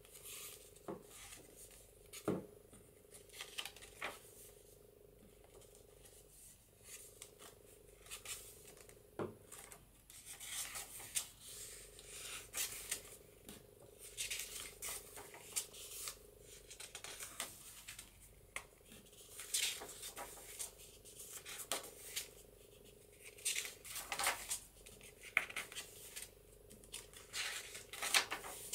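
Sheets of sturdy patterned journal paper being handled and turned over: irregular short rustles, scrapes and taps that come thicker from about a third of the way in, over a faint steady hum.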